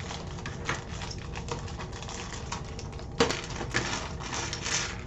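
Loose plastic LEGO pieces clicking and clattering against each other and the desk as they are handled, with a sharper clack about three seconds in.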